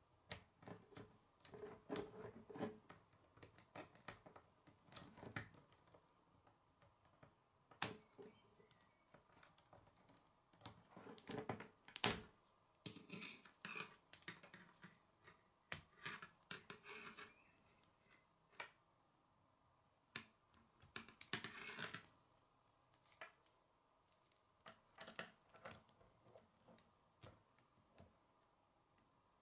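Plastic K'nex rods and connectors clicking and rattling as they are handled and snapped together, with two sharper snaps about eight and twelve seconds in.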